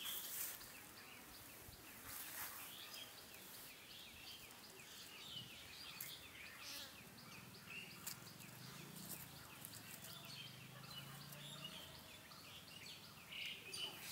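Faint outdoor ambience with small birds chirping quickly and repeatedly, a few soft clicks, and a low hum for several seconds in the middle.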